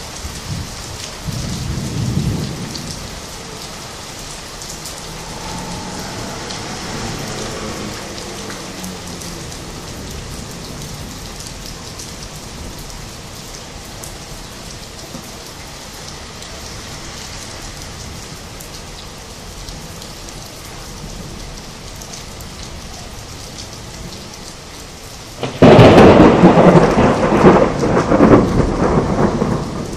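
Steady rain falling, with low rolling thunder in the first few seconds. About 26 seconds in comes a sudden loud thunderclap that rumbles on for several seconds.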